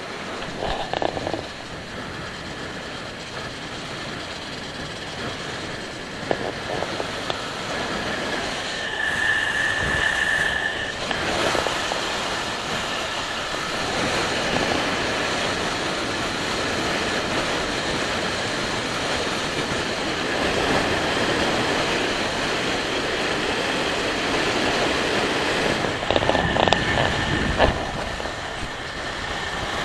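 Kawasaki Versys motorcycle riding along a road, heard from a camera on the bike: a steady rush of engine and wind noise with a thin whine over it, getting louder as it picks up speed about eight seconds in.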